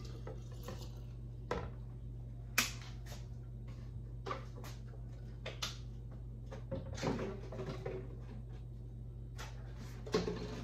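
Juice pouring from a blender jar into a glass jar at the start, then scattered clicks and knocks of kitchen items being handled and set down on the counter, the sharpest about two and a half seconds in and a short cluster near the seven-second mark, over a steady low hum.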